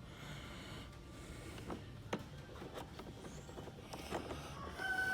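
Faint scattered clicks and taps of a screw and hand tool being worked into a motorcycle's plastic speaker fairing. A steady high tone starts just before the end.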